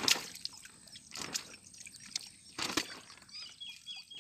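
Water sloshing and splashing as live fish fry are scooped by hand from a wet net into a plastic bag, in a few splashy bursts with small wet patters between them. A few faint high chirps come near the end.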